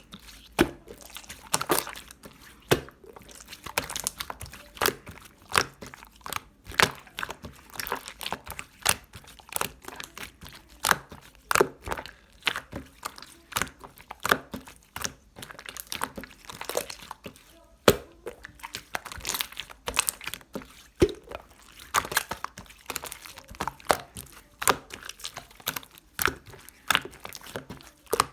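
Slime being squeezed, stretched and poked by hand, giving irregular sharp clicks and small popping crackles as air pockets burst.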